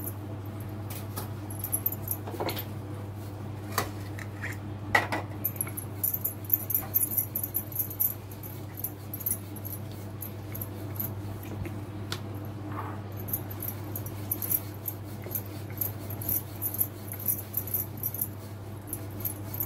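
Wooden rolling pin rolling out soft maida dough on a marble board, with scattered knocks of the pin and the jingling of glass bangles on the working wrist, over a steady low hum.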